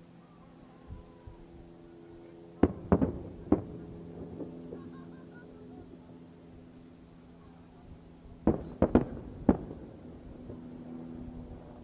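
Large aerial firework shells (shakudama, 12-inch shells) bursting in two quick clusters of sharp bangs: about four in a row near three seconds in and another four or five just before nine seconds. A steady low hum runs underneath.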